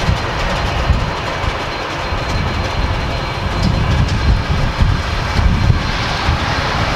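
Airliner jet engines at taxi power: a steady rumble and hiss, with a faint high whine.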